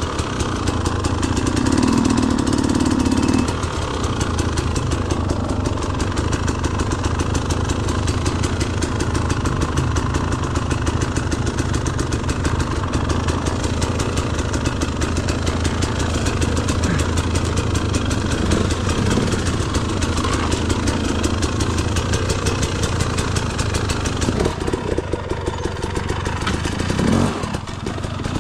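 KTM 250 EXC two-stroke enduro dirt bike engine running steadily, with some clatter from the bike.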